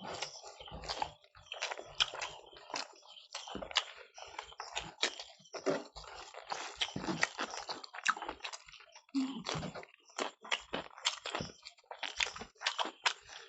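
Two people eating rice and curry: irregular chewing, biting and mouth smacking sounds.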